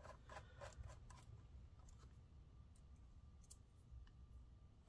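Near silence with a few faint clicks and taps as hands handle a MacBook Air's aluminium bottom cover, most of them in the first second or so.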